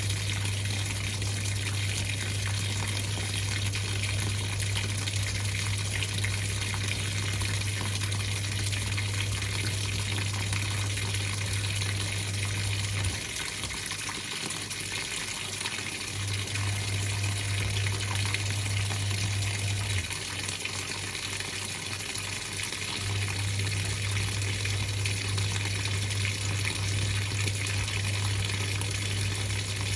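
Water rushing steadily through a Whirlpool top-loading washing machine, with a low hum that cuts out twice for a few seconds at a time.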